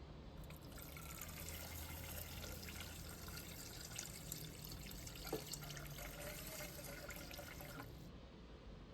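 Kitchen tap running into a sink, a steady splashing rush with a few small clinks, shut off abruptly about eight seconds in.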